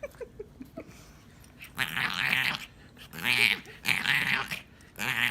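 A dog making growly vocal noises, four drawn-out bursts about a second apart after a quiet first two seconds.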